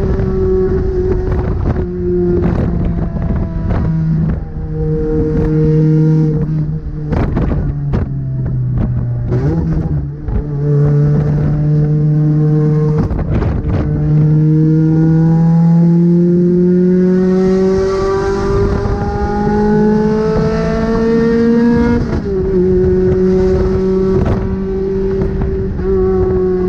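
Toyota 2ZZ-GE 1.8-litre four-cylinder engine pulling the car through the gears: the engine note holds and steps between shifts, then climbs steadily for several seconds before dropping at a gear change about 22 seconds in. Occasional sharp knocks from the car over the road.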